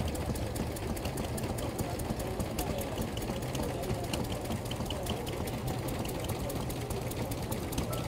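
An engine running steadily with a regular, even clicking beat. Faint voices can be heard in the background.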